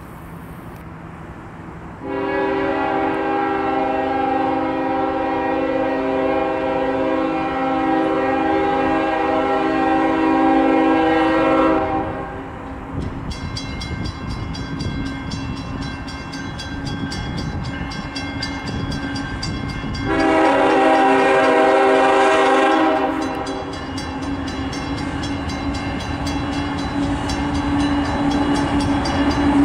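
Freight locomotive air horn blowing a long blast of about ten seconds, then a shorter blast about eight seconds later, and sounding again near the end: the grade-crossing warning. Under the second half the train's running noise grows loud.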